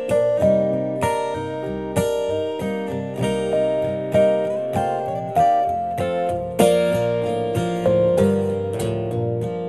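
Instrumental break by a live acoustic trio: strummed acoustic guitar, a Yamaha CP4 stage piano picking out a melody of single notes about two a second, and an upright double bass underneath.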